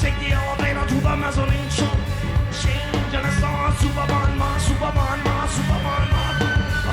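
Rock band playing: a steady drum beat with regular cymbal hits under bass and guitar, with some singing.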